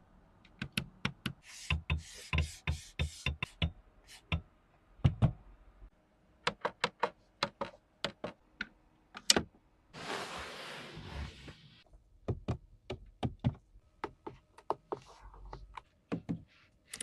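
A run of sharp clicks and knocks, some single and some in quick bursts, from a Mercedes-Benz GLC 260L's doors and controls being worked, with a short hiss about ten seconds in.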